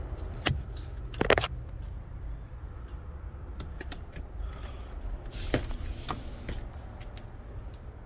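A steady low hum with scattered knocks and rustles of a phone being handled and moved around, the loudest a short scrape about a second in and a couple of knocks past the middle.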